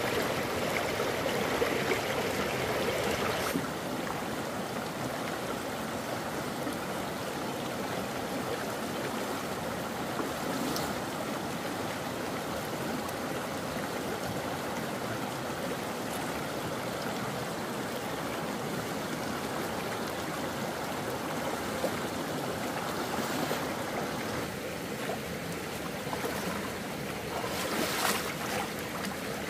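Floodwater rushing in a stream, a steady noise that is louder for the first few seconds, with a few brief sharper noises.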